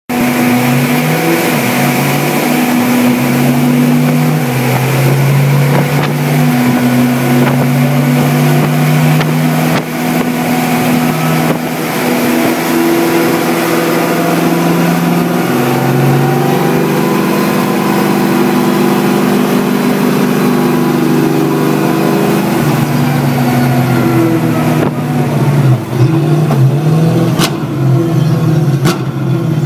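BMW Z4 GT3 race car's V8 running under load on a chassis dynamometer. Its pitch holds steady, then steps up and down between held engine speeds. Near the end the revs drop and come in short blips, with two sharp cracks.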